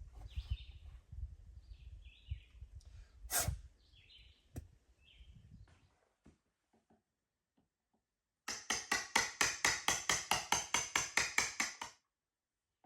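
Outdoor background with birds chirping and a single knock, then a rapid, even series of about twenty sharp knocks, roughly six a second, that stops suddenly.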